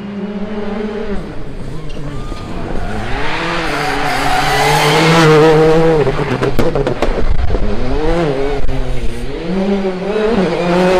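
Citroën C3 Rally2's turbocharged four-cylinder engine revving hard, its pitch swooping up and down through gear changes as the car comes through at speed. A rush of noise is loudest around five seconds in and is followed by a quick run of sharp cracks. The revs climb and fall again near the end.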